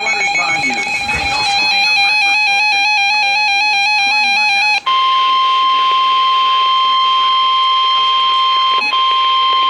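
NOAA Weather Radio emergency alert signal. First comes a shrill, warbling stream of digital data tones, the SAME header that encodes the warning. About five seconds in it switches to the steady 1050 Hz warning alarm tone, which holds with a brief break near the end.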